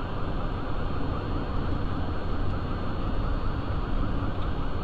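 Steady cockpit noise of a Citation 501's Pratt & Whitney JT15D turbofans and airflow after touchdown, heard through the intercom, with a faint chirp repeating rapidly over it.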